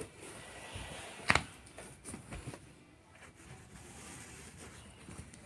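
Bed being shifted by hand: soft rustling and light knocks, with one sharp knock about a second in and a few quieter knocks after it.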